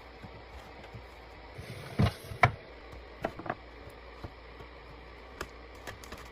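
Items and containers being handled and set down while restocking a fridge: two louder knocks about two seconds in, then a few lighter clicks and taps, over a steady low hiss.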